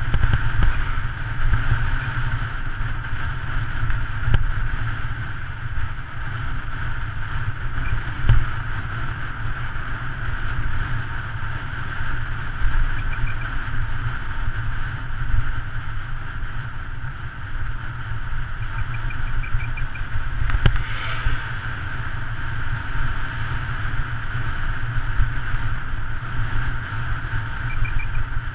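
Wind buffeting the microphone of a bicycle-mounted camera on a fast road descent, a steady low rumble mixed with road and tyre noise. A single sharp knock comes about two-thirds of the way through.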